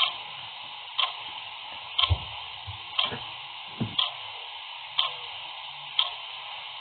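Clock ticking steadily, one sharp tick a second over a constant hiss, with a couple of soft low thumps near the middle.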